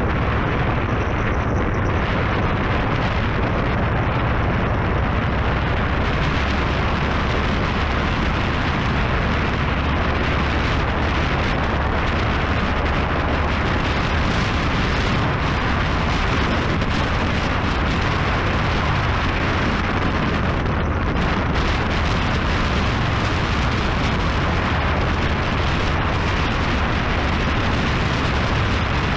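Steady wind roar on the microphone over the low rumble of a motorcycle engine while riding at road speed.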